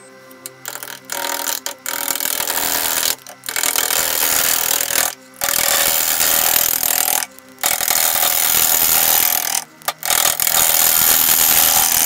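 Gouge cutting into a spinning, bark-covered dried cherry blank on a wood lathe, roughing down the out-of-round piece. The rough cutting noise comes in about half a dozen passes of one to two seconds, with short breaks as the tool comes off the wood.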